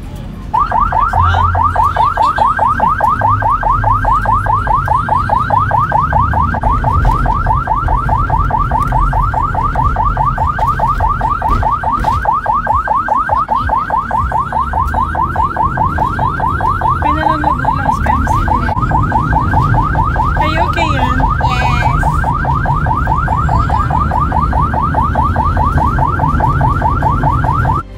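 Ambulance's electronic siren in fast yelp mode, heard from inside the cab: a loud, rapidly repeating rising-and-falling wail that starts about half a second in, over the low rumble of the moving vehicle.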